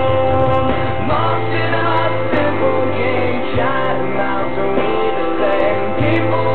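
A young girl singing a slow ballad melody over an instrumental backing track, with sustained bass notes that change every second or two.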